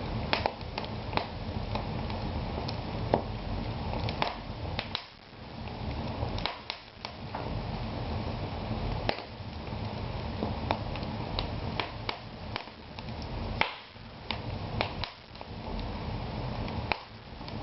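Wood fire burning down to embers in a fireplace, crackling with irregular sharp pops and snaps over a steady low rush.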